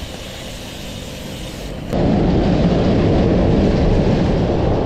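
Wind buffeting the microphone of a camera on a moving bicycle: a rushing noise that jumps suddenly to a much louder, heavy low rumble about two seconds in.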